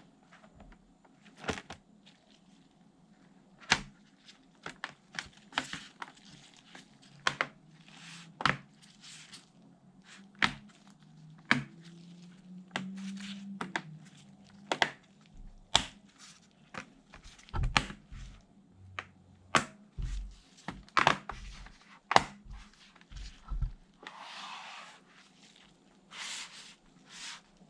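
Irregular clicks, taps and light knocks, with brief scrapes, as small laptop parts and tools are handled during work inside the laptop.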